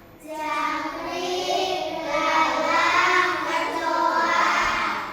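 A group of children singing together in unison, several young voices holding drawn-out notes.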